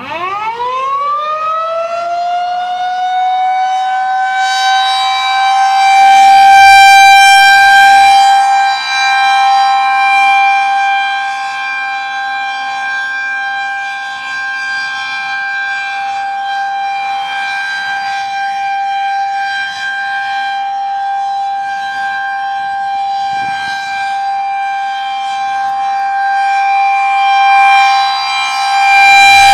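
Federal Signal 2001-SRNB rotating electromechanical outdoor warning siren sounding a test: it winds up in about two seconds to a steady single tone and holds it. Its loudness swells and fades slowly as the head rotates.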